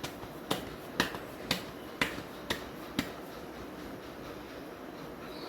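Seven sharp taps, evenly spaced at about two a second, stopping about three seconds in.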